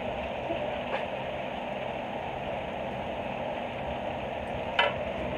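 Electric fan running with a steady whir, with a short click near the end.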